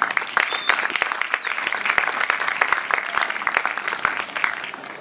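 Audience applause: many people clapping in a dense, irregular patter that dies away near the end.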